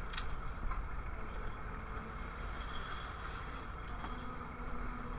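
Steady low rumble of the boats' engines running, with a faint steady hum joining about four seconds in.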